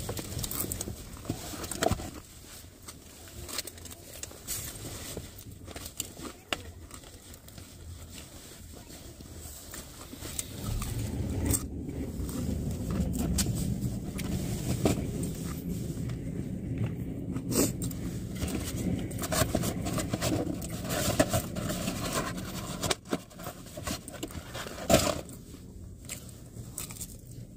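Vehicle noise: a low steady rumble that grows louder about ten seconds in, with scattered clicks and rustling throughout.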